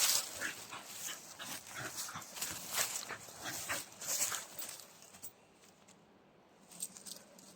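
Dog, likely the walker's border collie, close to the microphone: a run of short, irregular noisy breaths or snuffles for about five seconds, then it goes quieter with a couple more near the end.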